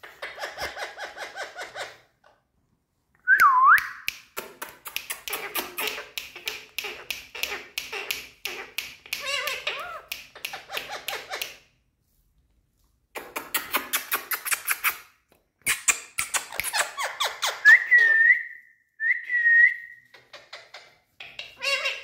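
Indian ringneck parakeets chattering in fast runs of short repeated notes, in bursts with short pauses. The chatter is broken by whistles: a falling whistle about three and a half seconds in, and two short rise-and-fall whistles near the end.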